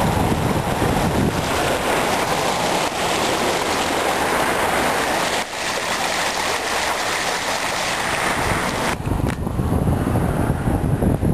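Wind buffeting the microphone: a loud, steady rush with low rumbling underneath. About nine seconds in, the hiss thins out and mostly the low rumble is left.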